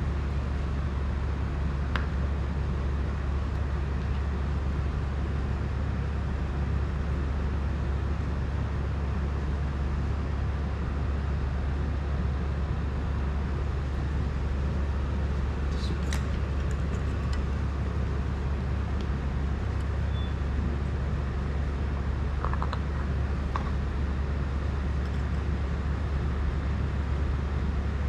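A steady low droning hum with an even background noise that does not change. A few faint small clicks and taps from small drone parts being handled come through about 2 seconds in, around the middle, and again a little later.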